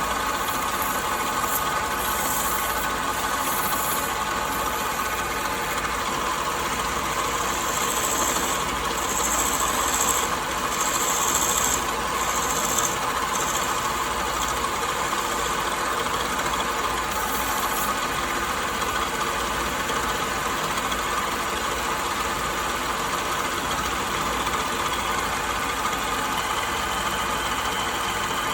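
A woodworking power tool's electric motor running steadily, with a few brief brighter passes in the middle as the tool works the wood.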